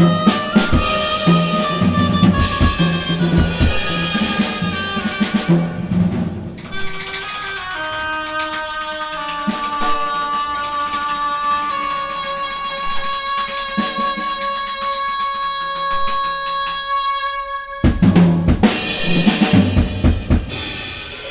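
Live band music with a drum kit: bass drum and snare under pitched notes, then the drums stop about six seconds in and long held notes ring on for about eleven seconds. These cut off suddenly and the drums come back in near the end.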